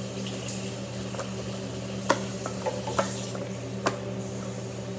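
Homemade fluffy slime being handled and squished, giving a few sharp sticky clicks and pops, the loudest about two seconds in, over a steady low hum.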